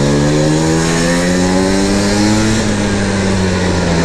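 Modified Vespa scooter's two-stroke engine with a crankcase-mounted ('intake tanam') intake, under way: its note climbs steadily as it accelerates for about two and a half seconds, then eases slightly as the throttle holds, with wind noise on the microphone.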